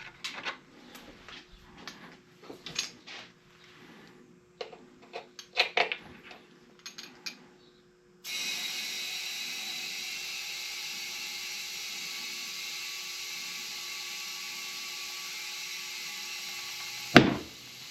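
Small clicks and knocks of handling, then compressed air from an air chuck hissing steadily into a tubeless motorcycle tire to set the bead. Near the end there is a sharp loud pop as the first bead snaps onto the rim.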